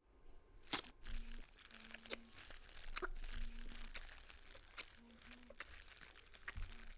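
Crinkly material crumpled and rubbed by hand: dense crackling with scattered sharp cracks, the loudest about three quarters of a second in.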